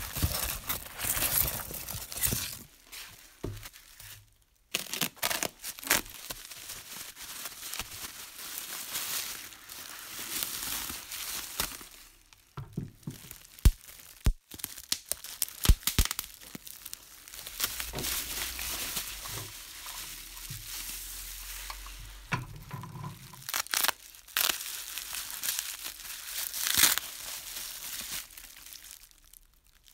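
Packing material being handled: polystyrene foam chunks rustling in a cardboard box, then bubble wrap crinkling as parts are unwrapped by gloved hands, with a few sharp clicks about halfway through.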